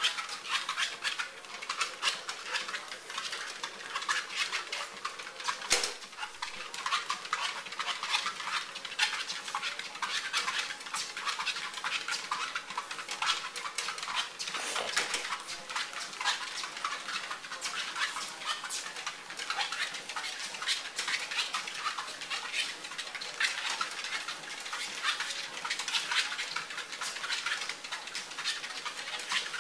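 Quick, continuous pattering of a Pekingese puppy's paws on a running treadmill belt, a dense stream of light taps and clicks.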